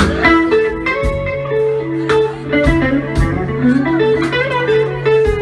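Live blues band: a semi-hollow-body electric guitar plays a single-note lead line with bends over bass and drums, with drum hits about every half second to second.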